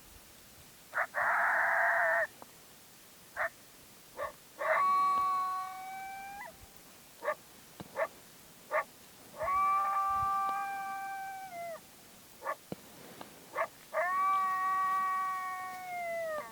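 Coyote barks and challenge howls, most likely blown on a hand-held predator call. A bark and a raspy bawl come first, then sharp single barks between three long, steady howls that each drop off at the end.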